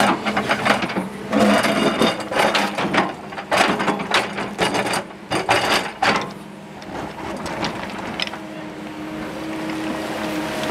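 Kobelco excavator's steel bucket scraping and clattering through broken rock and stony soil, with many sharp knocks and scrapes for about six seconds. After that the excavator's engine and hydraulics run on steadily with a faint held tone.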